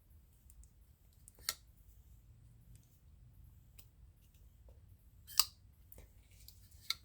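Petrified Fish PF959 folding pocket knife being worked in the hand: two sharp metallic clicks, about a second and a half in and again past five seconds, with faint small ticks between.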